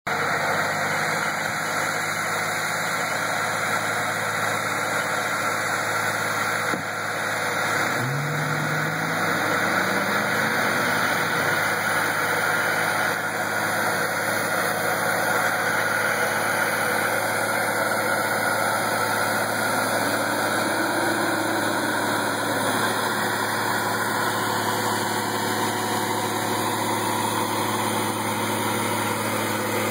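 Heavy-haul vehicle engines running steadily as a Goldhofer multi-axle platform trailer loaded with a transformer moves slowly past. An engine's pitch rises at about eight seconds in, and rises and falls again briefly around twenty seconds.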